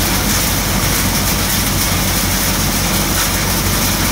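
Kamdhenu hopper-model thresher running steadily while threshing: a constant loud mechanical drone with a low hum, as grain streams out of its outlet chute.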